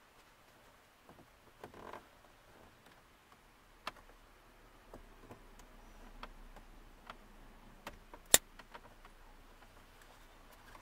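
Scattered small plastic clicks and taps as a switch connector is worked onto its wiring plug behind a dashboard blank, with one sharp click about eight seconds in.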